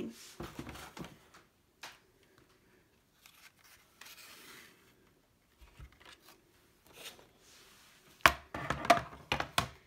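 Handling noises from setting thin metal cutting dies and cardstock pieces: scattered taps, rustles and rubbing, with a louder run of clacks and rattles near the end.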